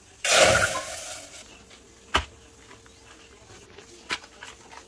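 Milk poured from a steel vessel into an empty stainless steel pot: a short splashing rush about a quarter second in that fades within a second. Later come two sharp clicks as a cardboard packet is handled and opened.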